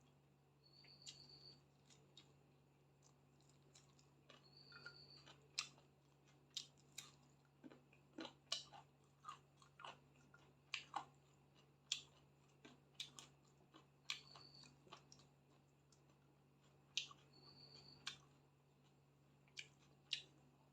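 Close-up eating sounds: chewing with a run of sharp wet mouth clicks, densest through the middle and later part. A short high chirp recurs a few times over a steady low hum.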